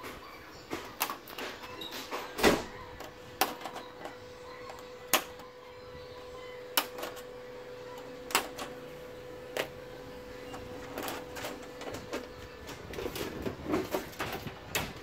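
Plastic clips of an LED TV's LCD panel holder frame being pried and snapped loose one at a time: sharp clicks every second or two, the loudest early on, over a steady faint hum. Near the end come softer handling and rattling noises.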